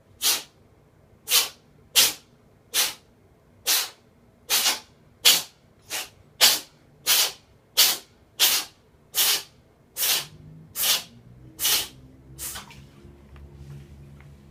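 Cat sneezing in a long fit: about seventeen short, sharp sneezes in quick succession, roughly one every two thirds of a second, stopping near the end. Fainter low sounds follow them.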